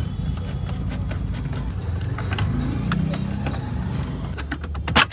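Plastic clicks and knocks from a car stereo head unit and its wiring connector being handled in the opened dashboard, over a steady low vehicle rumble. There is a run of quick ticks near the end, then a sharp click.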